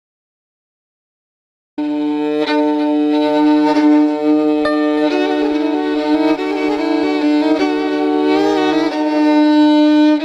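Dead silence for nearly two seconds, then music cuts in suddenly: a bowed string melody, violin-like, held over a steady sustained drone note.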